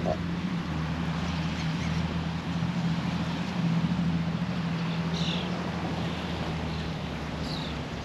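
A steady low engine drone over a background hiss, with a few short high bird chirps about five seconds in and again near the end.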